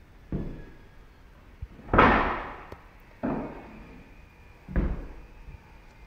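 Four heavy thumps or bangs, roughly a second and a half apart, each dying away with a short ringing tail; the second is the loudest.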